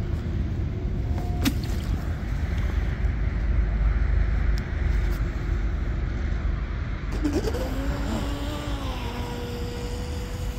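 Electric RC speedboat (M700 Mono, 3674 2200 kV brushless motor on 4S) running across the water, its motor and propeller whining. The pitch wavers up and down about two-thirds of the way through, then holds steady, over a steady low rumble.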